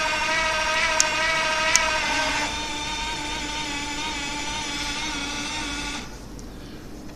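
Small electric motor of a toy RC BMW i8 whining steadily. It drops to a lower pitch about two and a half seconds in and stops about six seconds in, with two light clicks in the first two seconds.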